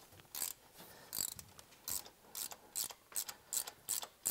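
Socket ratchet clicking in short back-and-forth strokes as a spark plug is backed out of a Chevrolet 396 big-block V8. The strokes are uneven at first, then settle into a quicker, steady pace of about three a second.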